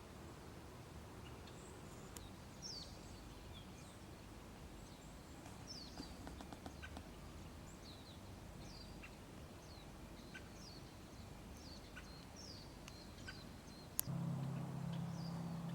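Small birds chirping, short high calls scattered throughout over faint background noise. Near the end a sharp click is followed by a steady low hum.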